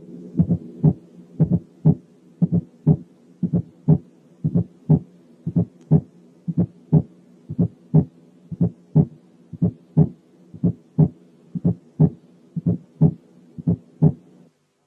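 Recorded heart sounds heard through a stethoscope: a slow, regular lub-dub, just under one beat a second, over a faint steady hum. A fourth heart sound (S4) falls just before each first sound, making it 'dlub' rather than 'lub'. This is an atrial gallop from atrial contraction stronger than normal, as heard in aortic stenosis, hypertension or myocardial infarction.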